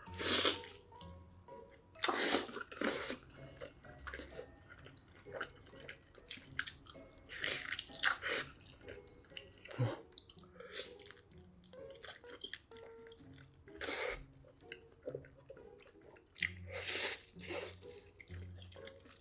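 Close-miked eating sounds: irregular wet slurps and chewing, with the loudest slurps about two seconds in and again around eight, fourteen and seventeen seconds.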